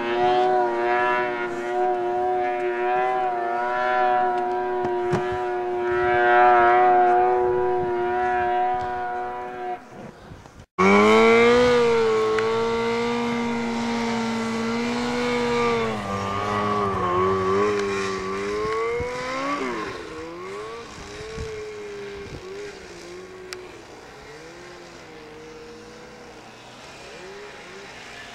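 Snowmobile engines at high, steady revs, cut off suddenly about ten seconds in. Another sled's engine follows, its pitch swinging up and down, then dropping and fading as it moves away.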